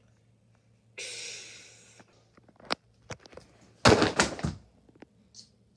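A hissing whoosh starts about a second in and fades away. A few sharp clicks follow, then a short, loud clattering crash about four seconds in.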